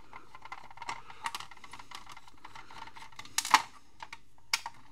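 Screwdriver turning small screws out of a plastic computer-interface casing, with light clicking and scraping of the tip and plastic. There is a sharper knock of plastic about three and a half seconds in and a smaller click about a second later.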